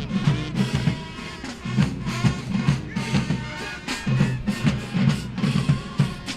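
Music with a heavy drum beat, bass drum and snare, playing steadily.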